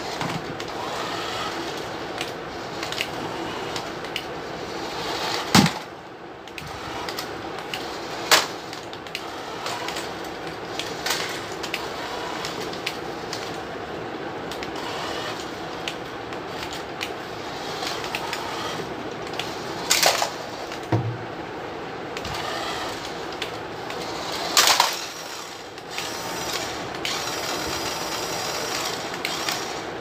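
Remote-control toy car's small electric motor whirring and its plastic wheels rattling over a tile floor, with several sharp plastic knocks as it bumps into other toy cars.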